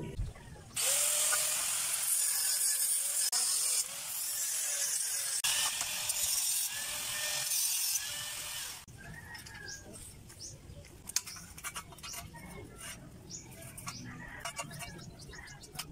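Angle grinder cutting steel flat bar: a harsh, high grinding hiss in several stretches that start and stop abruptly, lasting about eight seconds. After it, quieter scattered clinks and birds chirping.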